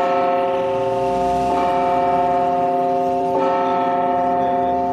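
Church bell ringing, restruck about every two seconds so its tone never dies away, rung for the hoisting of the feast flag.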